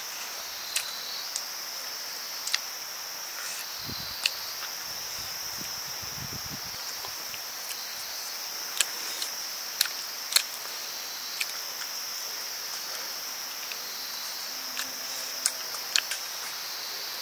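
Steady high-pitched insect chorus, with scattered sharp clicks heard over it.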